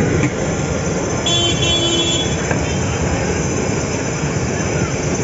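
Steady street noise of passing traffic. A short high-pitched tone sounds about a second in and lasts under a second.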